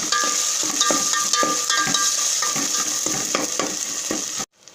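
Onion, tomato and ginger-garlic masala frying in oil in a pan, sizzling, while a spoon stirs and knocks against the vessel again and again. The sound cuts off suddenly near the end.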